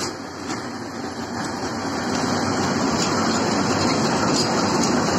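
ChME3E shunting diesel-electric locomotive, with a six-cylinder diesel engine, passing close by at low speed. Its engine runs with a steady rumble and the wheels give a few sharp clicks, growing louder as it draws near.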